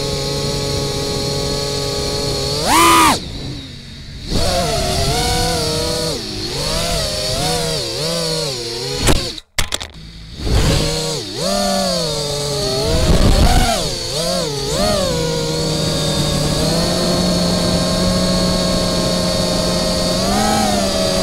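FPV quadcopter's 2207 brushless motors and propellers whining, the pitch rising and falling with the throttle. There is a loud sharp punch of throttle about three seconds in, then a brief near-cut, and the motors hold a steadier pitch over the last few seconds.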